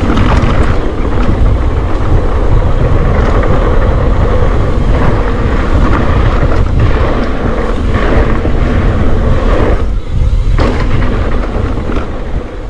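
Mountain bike riding fast on a dirt trail: a continuous rush of wind on the microphone and tyre noise, dipping briefly about ten seconds in.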